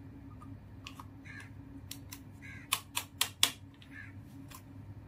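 Hard plastic clicks and taps as a toy syringe is handled, with a quick run of four sharp clicks about halfway through.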